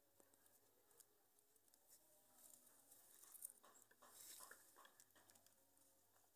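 Near silence with faint scattered clicks and soft rustling, slightly stronger in the middle.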